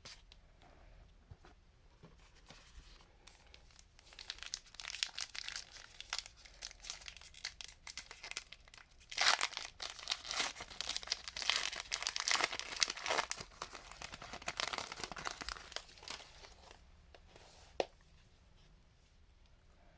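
A trading-card pack's foil wrapper being torn open and crinkled by hand, in a dense run of crackling that is loudest in the middle, followed by a single click near the end.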